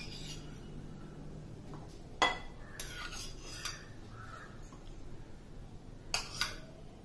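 Metal spoon clinking against a small stainless-steel bowl as chopped tomato is scooped out: a few sharp clinks, the loudest about two seconds in with a short ring after it, and a pair near the end.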